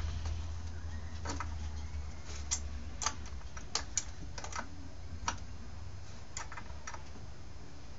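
Irregular light clicks and taps of hand tools and small parts being worked on a chainsaw at a workbench, about a dozen in all, over a steady low hum.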